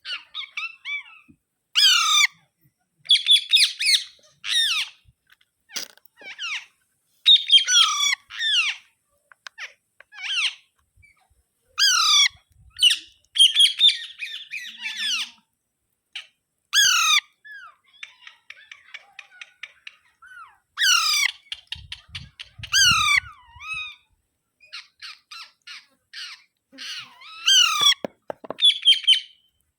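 Alexandrine parakeet giving loud, harsh squawks that fall in pitch, repeated every few seconds, with quicker runs of short chattering calls in between.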